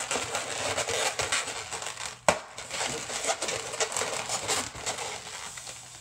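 Inflated latex modelling balloons rubbing against each other as an orange 260 balloon is worked through the middle of a balloon figure, giving a continuous crackly rubbing, with one sharp snap a little over two seconds in.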